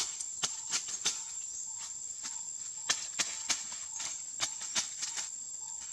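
Machete blade chopping into leaf-littered forest soil, short sharp strikes about two to three a second at an uneven pace, over a steady high-pitched insect buzz.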